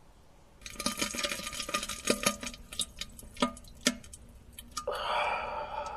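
Irregular small wet clicks and drips of liquid, a few a second. Near the end they give way to a soft breathy hiss.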